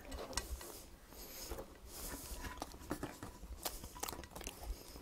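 Quiet handling sounds: scattered light clicks and soft rustles as naan bread on a plate is moved about and handled.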